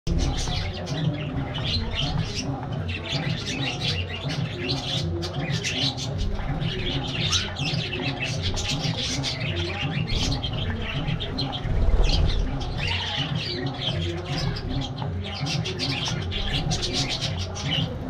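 A flock of budgerigars chattering and chirping continuously in many overlapping fast warbles, with a low thump about twelve seconds in.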